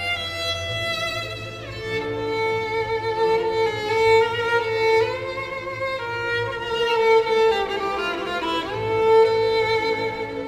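Background music: a slow melody of long held notes, some gliding smoothly into the next.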